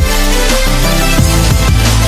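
Loud electronic background music with a heavy bass line and repeated falling bass swoops.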